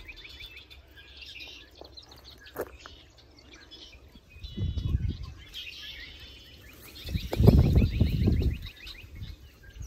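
Small birds chirping in quick, repeated short calls, with wind rumbling on the microphone in gusts about halfway through and again near the end.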